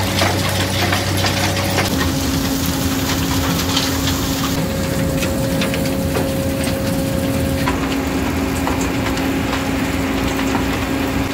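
Backers 2ta star screening plant running, with the steady drone of its Perkins 1204J diesel engine and drives. Soil and stones clatter through the star screen and off the conveyor in many small knocks. The steady hum shifts higher about two seconds in.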